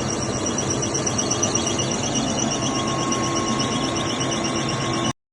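Fish-feed processing machinery running steadily, a constant mechanical drone with a high-pitched whine over it. A further steady tone joins about halfway through, and the sound cuts off abruptly just before the end.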